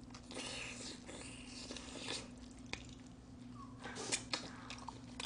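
Close-miked wet chewing and biting on a sauce-coated smoked chicken drumstick: soft squishy smacking with a few sharp clicks, over a faint steady hum.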